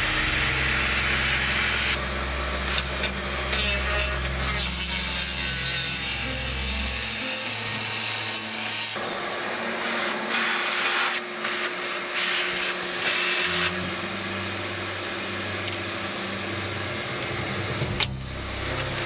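Dremel power tool grinding and cutting through old fiberglass laid over plywood. It runs without a break, its tone shifting several times as it bears into the material.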